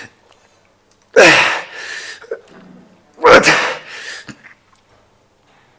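A man grunting hard with forceful exhales while straining through cable fly reps: two loud grunts about two seconds apart, each dropping in pitch.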